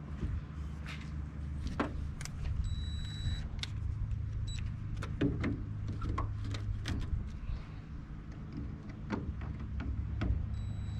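Tools working on the aluminum boat's loose transom bolts: scattered clicks and metallic knocks over a steady low hum. A thin high whine comes in briefly about three seconds in and again near the end.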